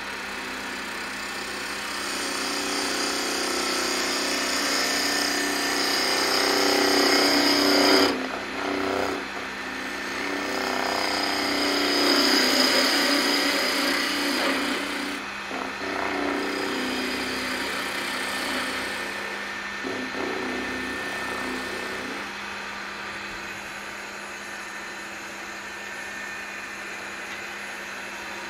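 Wood lathe running steadily while a bowl gouge cuts the spinning magnolia blank. The cutting comes in passes: one building to a peak, a sharp break about eight seconds in, a second strong pass, then lighter cuts. For the last few seconds only the lathe's hum remains.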